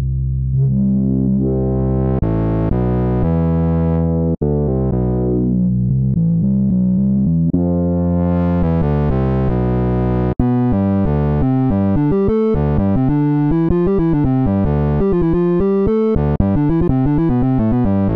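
J4 software synthesizer, a Kontakt library sampled from a Roland Jupiter-4, playing sustained low chords whose tone brightens and darkens as the filter sweeps. About halfway through it switches to a fast run of quickly changing notes, like an arpeggio.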